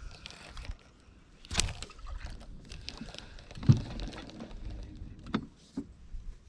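Handling noise from a fishing rod and reel and a small boat: scattered clicks and knocks, the loudest a low thump about three and a half seconds in.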